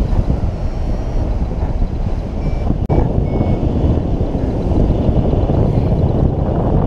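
Wind rushing over the microphone of a camera mounted on a hang glider in flight, a loud steady rumble that drops out for an instant about three seconds in. A few faint short high beeps at changing pitches sound through it.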